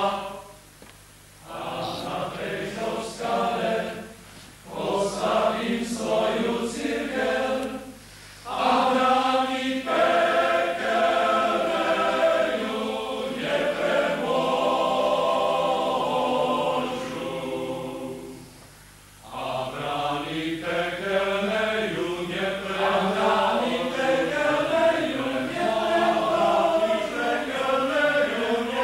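Priests' choir of men's voices singing a hymn in phrases, with short breaths between them and a longer pause about two-thirds of the way in.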